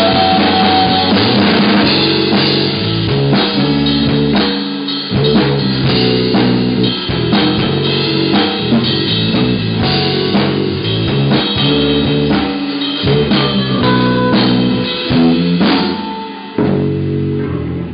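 Rock band playing an instrumental passage on drum kit, electric guitar and bass, with steady drum hits. The music thins out and drops in level about sixteen seconds in.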